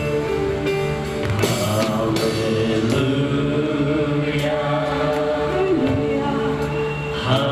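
Worship music with singing and long, sustained held notes.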